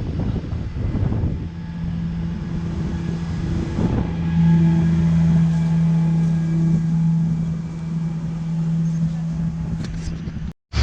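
Open-top tour bus ride: wind buffeting the microphone at first, then a steady low engine hum from about a second and a half in that holds one pitch, as if idling. It grows louder about four seconds in, and the sound cuts out suddenly just before the end.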